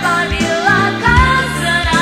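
Indonesian pop ballad: a woman's voice sings over a band with bass and drums, holding a long, wavering note in the second half.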